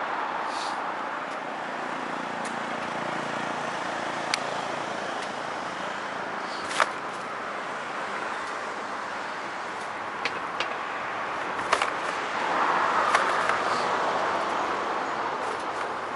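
Steady road and traffic noise on a street bicycle ride, picked up by an action camera mounted on the bicycle, with several sharp clicks and knocks scattered through. The noise swells for a couple of seconds about two-thirds of the way through.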